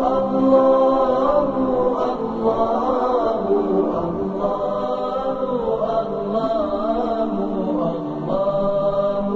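Wordless vocal 'aahs' for montage: long sustained sung vowels that glide slowly in pitch, chant-like, with a new phrase beginning about two, four and eight seconds in.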